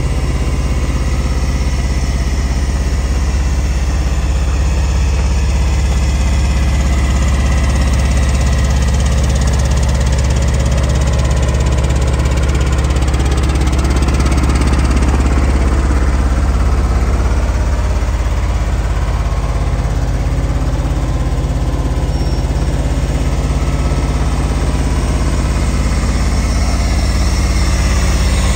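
Atlas Copco ACR100 trailer-mounted portable air compressor with its engine running steadily at idle.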